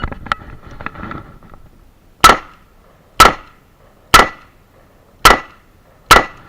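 Five revolver shots fired at a steady pace, about one a second, for a string of five shots to the body. Softer handling noise comes just before them, from the draw.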